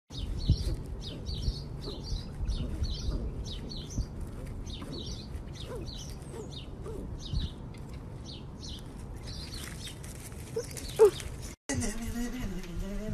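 Small birds chirping over and over, about two short high calls a second, over a low rumble like wind on the microphone. There is one short, loud sharp sound near the end.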